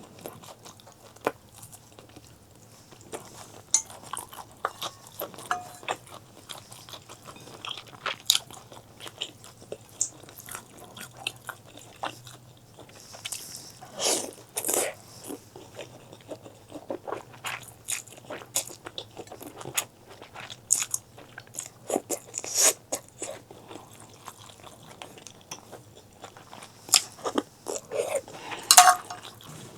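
Close-miked eating sounds: a person biting and chewing food, with many irregular short, crunchy, wet clicks.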